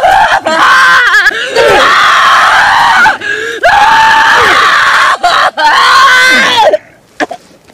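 A woman screaming and wailing in distress: long, loud, wavering cries broken by short gasps for breath. They stop near the end.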